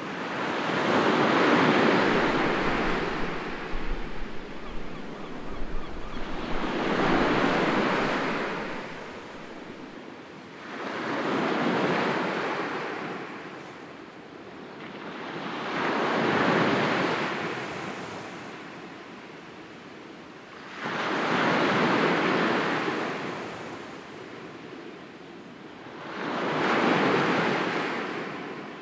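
Sea waves washing onto the shore: six slow surges, one about every five seconds, each swelling and fading away. Wind buffets the microphone during the first two.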